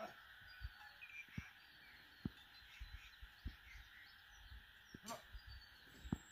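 Faint rural outdoor ambience: a steady, distant high-pitched chorus of calling animals with small chirps, and a few soft low thumps spread through.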